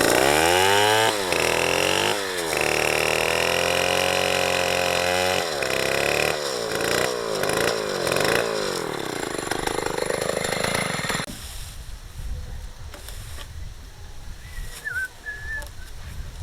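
Small two-stroke chainsaw engine revving up and down in bursts, held at high revs for a few seconds, then stopping suddenly about eleven seconds in, leaving only low background noise.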